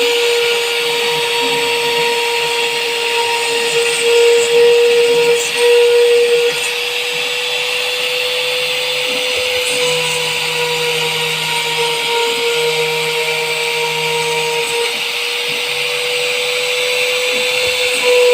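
CNC router spindle running with a steady whine while it cuts aluminium composite panel, with a noisy cutting hiss over it. A lower hum comes and goes in the second half.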